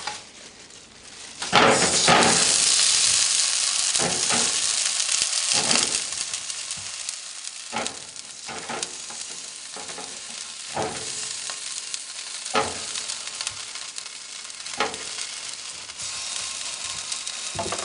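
Oiled frozen chicken tenderloins sizzling as they are laid on the hot air-fry rack of a preheated air fryer oven. The sizzle starts about a second and a half in and is loudest for the next few seconds, then carries on more softly, with occasional knocks against the rack.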